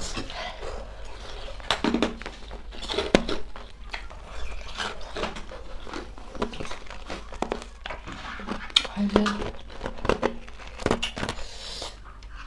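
Close-up eating sounds: chewing and mouth noises from a mukbang of spicy noodles, with scattered clicks of a fork and bowl against plates.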